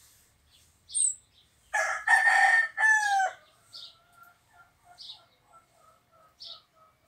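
A rooster crows once, about two seconds in, the call ending on a falling note, followed by a run of soft short notes. A small bird chirps about once a second throughout.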